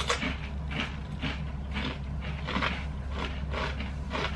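Chewing and crunching of hard, thick crinkle-cut potato crisps (Marks & Spencer Big Crinkle, sea salt and cider vinegar), a crisp crunch about twice a second.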